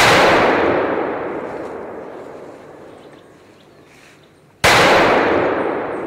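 Two rifle shots about four and a half seconds apart, each sharp crack followed by a long echo that fades slowly over about three seconds.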